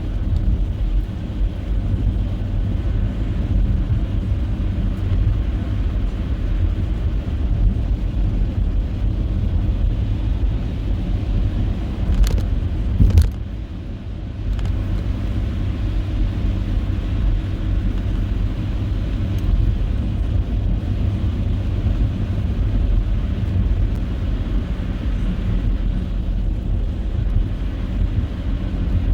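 Car driving on a snowy road: a steady low rumble of tyres and engine, with two sharp knocks about twelve and thirteen seconds in, after which the rumble drops for about a second.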